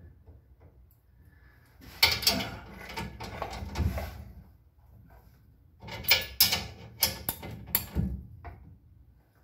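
Metal scraping and clanking of hand tools on a Model A Ford's rear leaf spring and shackle, then a run of sharp metallic clicks, about three a second, as a ratchet wrench is worked.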